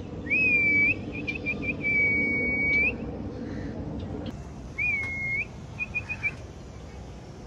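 High, clear whistling in two bouts. The first is a swooping note, a quick run of four short pips, then a long held note that flicks upward at the end. About five seconds in, a shorter swoop and four more pips follow.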